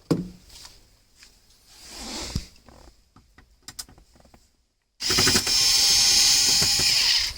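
Small clicks and handling of a screw and tool. About five seconds in, a power drill/driver starts and runs steadily for a little over two seconds, backing out a Torx screw from the dash bezel, then stops.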